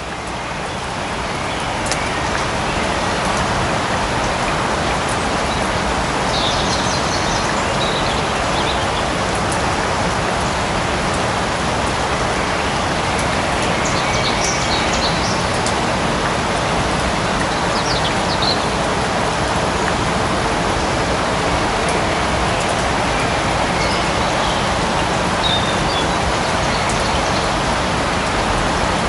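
Light rain falling steadily in a forest, swelling up over the first couple of seconds and then holding even. A few short, high bird chirps come through the rain now and then.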